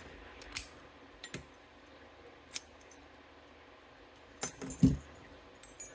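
Lock picks and a tension wrench working a Master Lock dimple padlock, giving a few separate metallic clicks and then a short cluster of clinks about five seconds in, as the lock's core spring tension is felt out.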